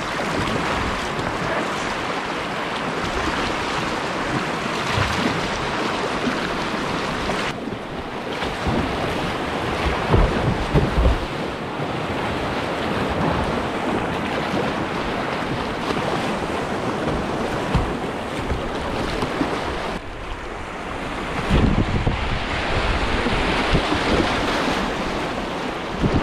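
Steady rush of whitewater from moving river water, with wind noise on the microphone. A few low buffeting thuds come about ten seconds in and again near the end.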